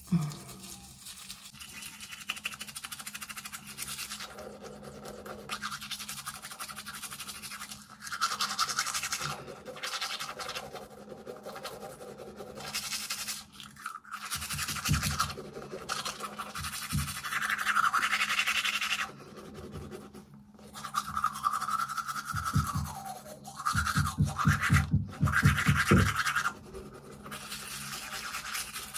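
Manual toothbrush scrubbing teeth close to the microphone, a scratchy bristle sound in bursts with short pauses, with music playing underneath.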